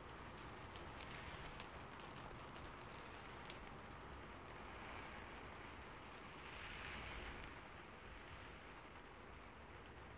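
Faint steady hiss with soft scratchy swishes and light ticks of a fine paintbrush stroking acrylic paint onto a canvas board; the strongest swish comes about seven seconds in.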